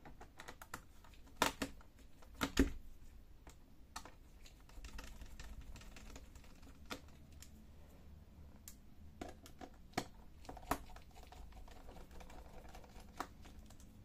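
Irregular small clicks and taps of a precision screwdriver turning out screws from a plastic laptop bottom panel, with a couple of sharper clicks about one and a half and two and a half seconds in.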